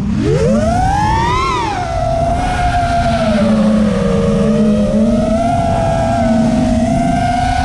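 FPV racing quadcopter's brushless motors and propellers whining, heard through the onboard camera: the pitch climbs steeply over the first second and a half as the throttle is punched, drops back, then settles into a steadier whine with small wavers as the throttle is worked.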